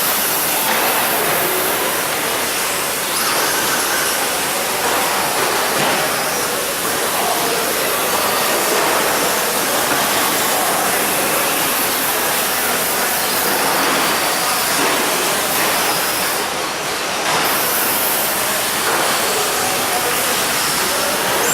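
Several electric 2WD short course RC trucks racing on a dirt track: motors and tyres make a steady, loud, hissing wash of noise that rises and falls slightly as the trucks pass.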